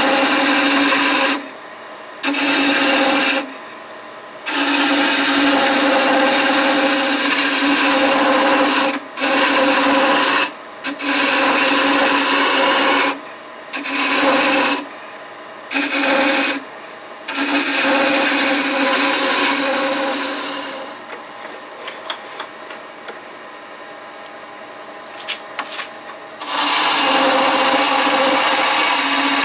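A wood lathe turning a walnut blank, a gouge cutting the spinning wood with a loud, rough scraping hiss over a steady pitch. The cuts stop and start again many times for a moment each, and about two-thirds of the way in the tool comes off for several seconds, leaving only a low hum and a few faint ticks before cutting resumes.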